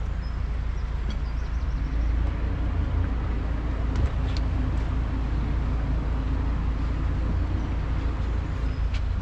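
Narrowboat's diesel engine running steadily while cruising, a low rumble with a constant hum over it.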